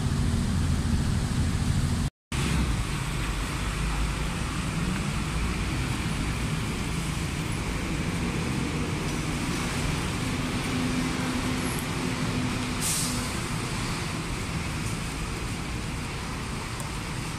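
Steady road traffic rumble with a brief hiss about thirteen seconds in. The sound cuts out completely for a moment about two seconds in.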